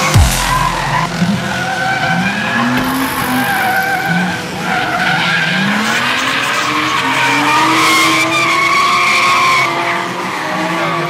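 Drift car sliding: the engine revs up again and again in rising climbs while the tyres squeal and skid.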